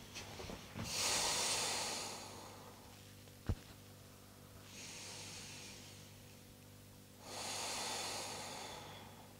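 Slow, deep breaths taken close to the microphone, heard as airy rushes of air. There is a loud breath about a second in, a softer one about five seconds in and another loud one near the end. A single sharp click falls about midway.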